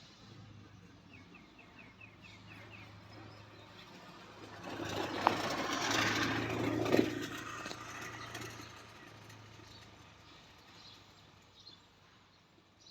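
A vehicle passing by, its noise swelling over a few seconds and then fading away. A short run of quick bird chirps comes near the start.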